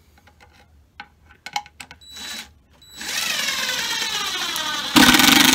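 A DeWalt cordless drill drives a screw into the wooden wall of a hive box. There is a short burst on the trigger about two seconds in. From about three seconds the motor runs steadily, its pitch slowly falling, and about five seconds in it turns suddenly much louder and harsher.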